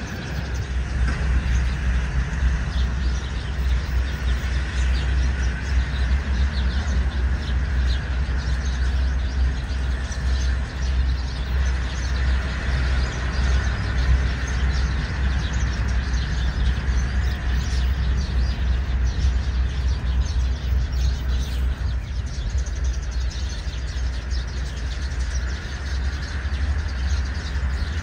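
Outdoor ambience: a steady low rumble with an even background hiss, and faint bird chirps scattered through it.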